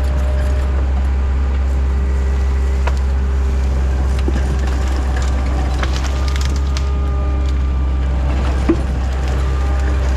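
TL10 compact track loader's diesel engine running steadily at working speed while the hydraulic tree shear cuts oak, with wood cracking and splintering, scattered cracks and one sharp snap near the end.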